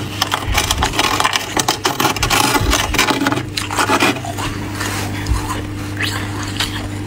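Fingers scraping and raking the thick frost inside a freezer: rapid scratching, densest in the first four seconds and thinning out after, over a steady low hum.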